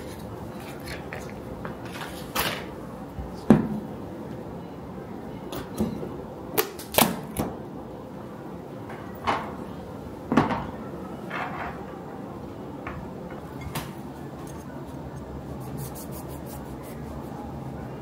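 A series of light knocks and clicks from food packaging handled on a table: a round cardboard box of triangle cheese wedges set down and a plastic food container's lid lifted. The loudest knock comes about three and a half seconds in, with a quick cluster of clicks around six to seven seconds.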